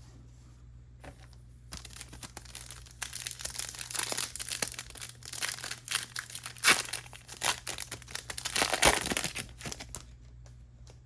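Plastic trading-card pack wrapper being torn open and crumpled: a run of crinkling and crackling that starts about two seconds in, with a few sharp louder crinkles, and stops shortly before the end.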